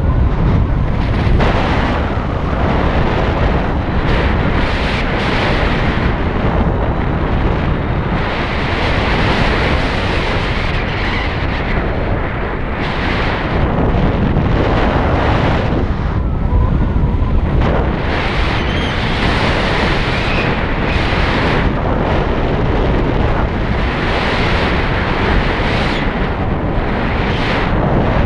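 Loud wind noise buffeting the microphone, a continuous low rumble with a hiss that swells and drops every second or so.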